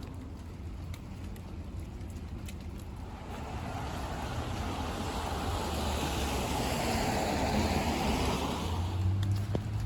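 A car passing on a wet city street: the tyre hiss swells over several seconds, is loudest about seven to nine seconds in, then fades, over a low traffic rumble.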